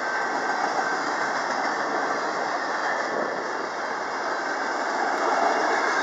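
Freight train flatcars rolling past: a steady rush of steel wheels on rail, with a faint steady high tone over it.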